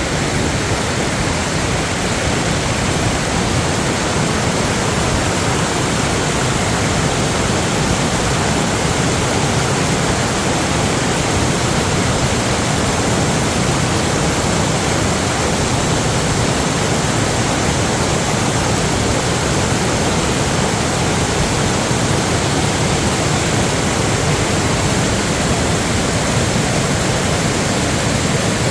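Steady, loud rush of water, even and unbroken, with no separate sounds standing out.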